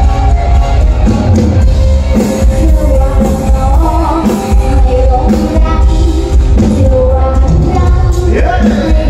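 Live mor lam sing music played loudly through a stage PA: a band with a heavy bass beat, with a singer on microphone.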